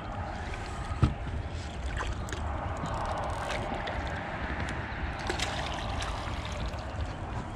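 Water sloshing and splashing at the side of an aluminium boat as a hooked channel catfish is fought to the surface and netted, with a sharp knock about a second in.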